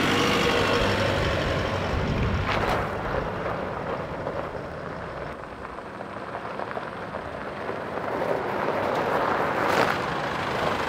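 An Isuzu MU-X diesel four-wheel drive drives off past on concrete and gravel, its engine and tyre crunch fading away. It comes back growing louder near the end.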